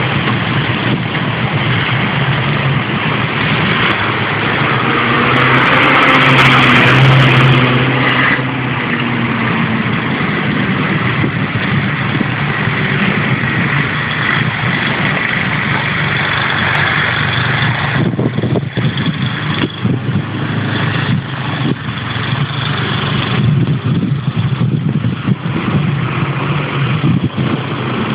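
Diesel engines of snowplow tractors with front V-plows running steadily while clearing a snowy street. The sound swells for a couple of seconds about six seconds in.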